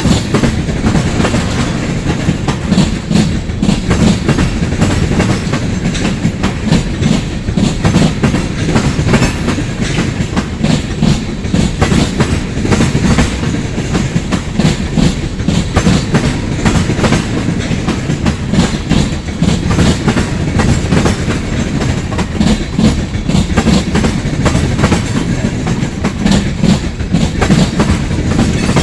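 Freight cars of a long freight train rolling past, their steel wheels clicking over rail joints in a steady, rapid clickety-clack over a continuous rumble.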